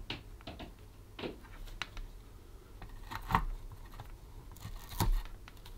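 Light handling noise: a few scattered clicks and rustles as a multimeter probe is set on a chip's pins and fingers move over the speaker's circuit board, the two clearest about three and five seconds in.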